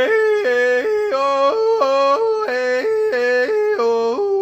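Yodeling: a single voice flipping rapidly back and forth between a low chest note and a high falsetto note, over and over.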